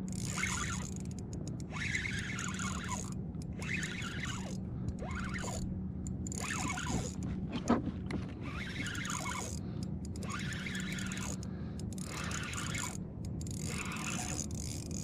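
Fishing reel being cranked in repeated spells, its gears whirring and scraping, as a hooked fluke is reeled in.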